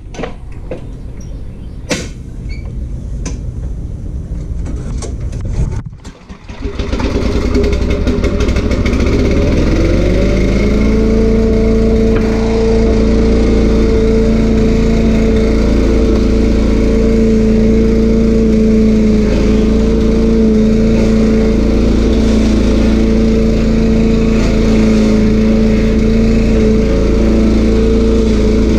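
The stump grinder's 13 HP Honda engine, after a few knocks and a brief dip in level about six seconds in, revs up over several seconds to full speed and then runs steadily at high speed.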